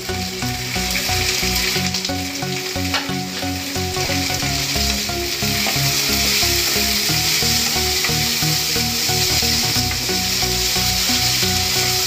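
Chopped onion, potato and carrot sizzling in hot oil in a non-stick kadai, stirred and turned over with a spatula.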